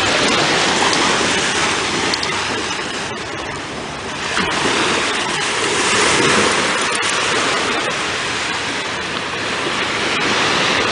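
Ocean surf washing on the beach: a steady rushing noise that swells again about four seconds in.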